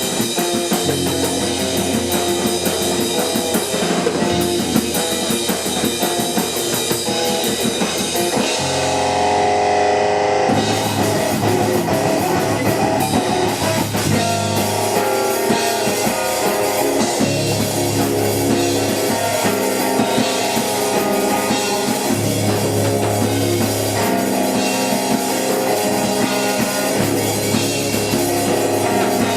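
Live math-rock/post-hardcore band playing an instrumental passage on electric guitars, bass and drum kit. About nine seconds in, the drums drop out briefly while a chord rings, then the full band comes back in.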